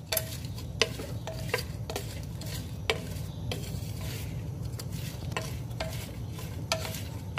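Wooden spatula stirring chopped onions with spices in a clay handi, knocking and scraping against the earthenware in irregular taps roughly every half second, over a steady low hum.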